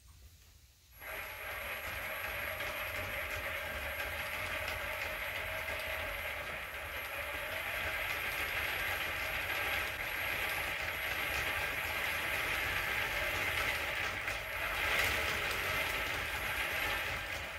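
Homemade 36-volt electric mini bike's motor running and driving the raised rear wheel through its chain and sprocket: a steady whine with chain and sprocket rattle. It starts about a second in and stops near the end.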